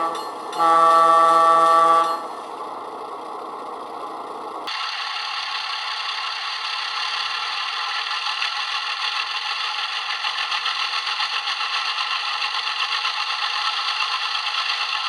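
Model diesel locomotive's DCC sound decoder playing through a small speaker. It gives a short horn toot and then a longer horn blast, followed a few seconds later by a sudden start of a steady, louder rattling noise.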